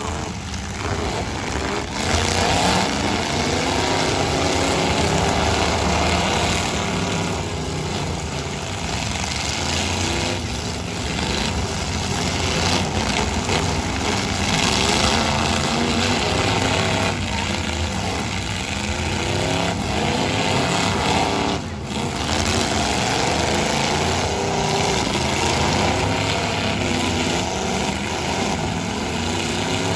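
Many pickup truck engines revving and running at once, their pitches rising and falling over one another, as the derby trucks drive and ram in the pit.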